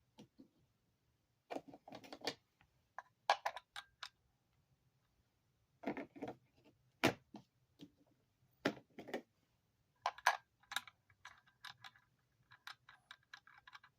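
Metal hand tools and sockets clinking and clattering in short irregular bursts, as sockets are swapped and fitted onto a motor's bolt, with a run of lighter quick clicks in the last few seconds.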